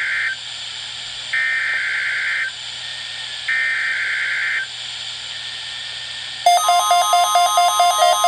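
Emergency Alert System SAME header over NOAA Weather Radio: three one-second bursts of screechy digital data tones, the first already under way, repeated about two seconds apart. About six seconds in, an alert tone starts: a steady tone with a rapid, regularly pulsing tone over it.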